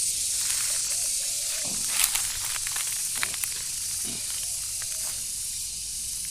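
Outdoor rural ambience: a steady high-pitched hiss, with a few short clicks, the sharpest about two seconds in.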